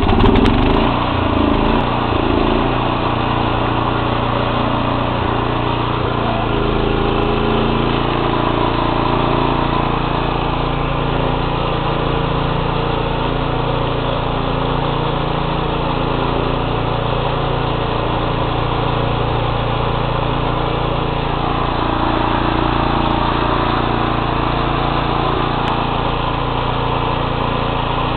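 Small engine of a single-axle walking tractor, just started: it runs unevenly for the first couple of seconds, then settles into a steady run as the tractor drives along.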